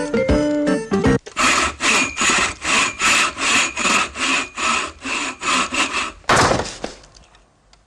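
A moment of plucked-string music, then even back-and-forth rasping strokes, about three or four a second. About six seconds in comes one longer, louder rasp, and after it the sound dies away.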